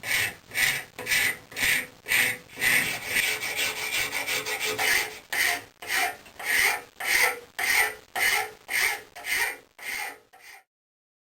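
Hand file worked back and forth in steady strokes, about two a second, running together for a couple of seconds in the middle, then stopping near the end.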